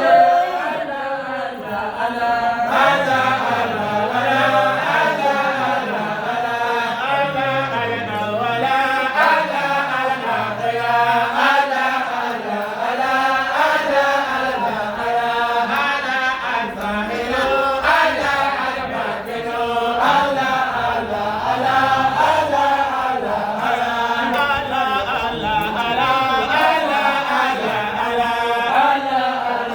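Many voices chanting together in unison, a continuous Islamic dhikr chant repeating the same melodic phrase over and over.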